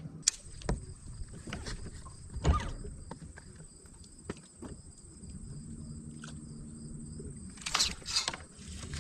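Scattered knocks and clicks on a bass boat's deck while the angler works a lure, the loudest about two and a half seconds in and a quick cluster near the end. A steady high whine runs underneath. From about five seconds in comes a low electric hum from the bow trolling motor running.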